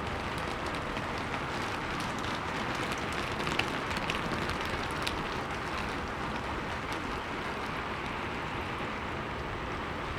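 Steady rainfall, with scattered sharper drop ticks over the even hiss.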